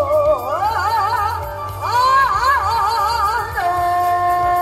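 A woman singing in a Korean traditional sori voice, a wavering, ornamented melodic line that dips and climbs and then settles into a long held note about three and a half seconds in, with gayageum accompaniment.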